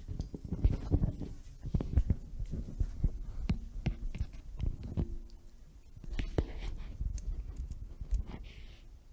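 Microphone handling noise: irregular low thumps and rustles as a handheld microphone is passed between presenters, with a few sharp clicks and a faint murmur.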